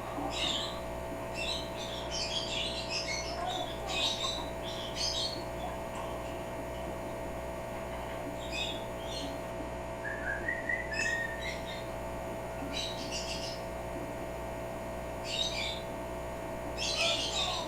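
African grey parrot making short, high chirps, clicks and squeaks in scattered bursts, with a small rising whistled chirp near the middle. A steady electrical hum runs underneath.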